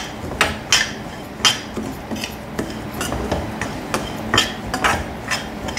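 Metal spoon scraping and knocking against a stainless-steel kadai as samba wheat rava is stirred and dry-roasted in ghee. The clinks come irregularly, about two a second.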